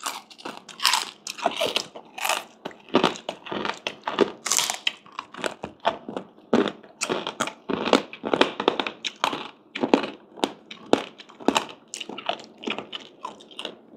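Crunchy chicharon (deep-fried pork rind) being bitten and chewed, a steady run of sharp crackling crunches, several a second.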